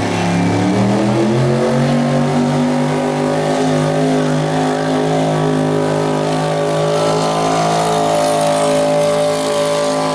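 Classic Chevrolet pickup's engine running flat out as it drags a truck-pulling sled, rear tyres spinning on the dirt. The engine's pitch dips at the start, climbs over the next couple of seconds, then holds high and steady.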